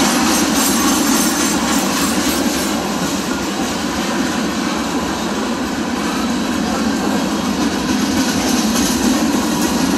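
Freight train cars rolling past at close range, a steady, loud rumble of steel wheels on the rails.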